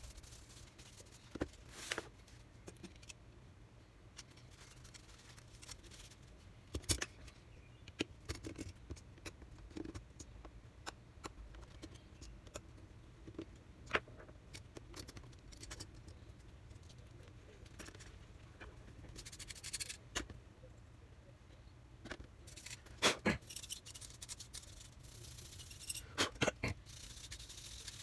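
Scattered small clicks, taps and scrapes of a screwdriver and plastic laptop parts being handled during disassembly of a Sony Vaio laptop, with a louder cluster of sharp clicks near the end.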